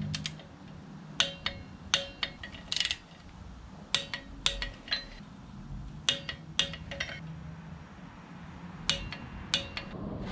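Metal hand tools and small metal parts clinking together: about a dozen short, sharp metallic clicks at irregular intervals, each with a brief ring.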